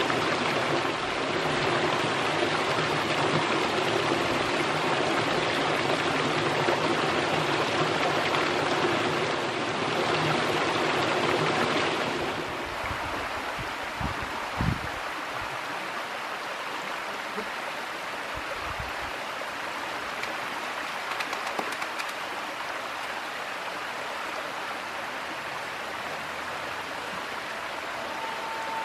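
Mountain stream water rushing steadily over rock. About twelve seconds in it changes abruptly to a quieter, lighter splashing of a small cascade running down rock slabs into a pool.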